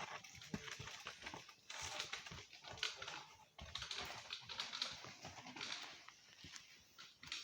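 Faint, irregular clicking and crunching of stones on a rocky trail as mountain bikes and walking riders pass over them.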